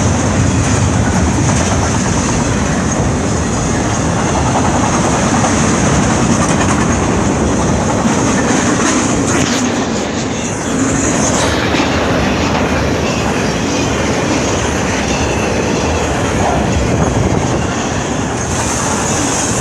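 BNSF freight train rolling past: a steady loud rumble and clatter of wheels on the rails, with a high steady ring above it.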